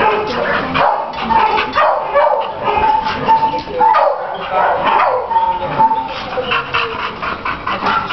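Several shelter dogs barking and whining at once in their kennels, a constant din with high, drawn-out whines over it.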